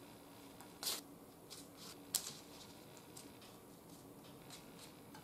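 Faint, soft dabbing of a silicone pastry brush spreading egg wash over bread dough, with a few light, sharp clicks, the two loudest about one and two seconds in.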